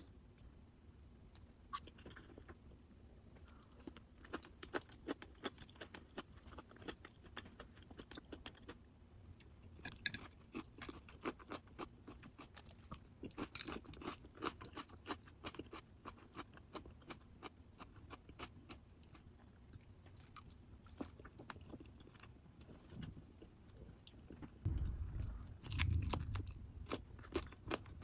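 Close-up eating sounds: chewing and crunching of food, with many small crunches and clicks at an irregular pace. A brief low rumble comes in near the end.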